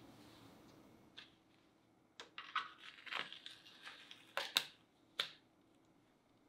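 Clear plastic acetate cake collar rustling and crinkling as it is wrapped around a crepe cake, a run of crinkles with a few sharp snaps from about two seconds in to about five.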